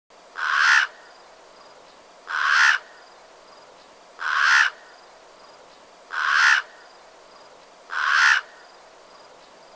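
Crow cawing: five harsh caws, evenly spaced about two seconds apart, over a steady background hiss.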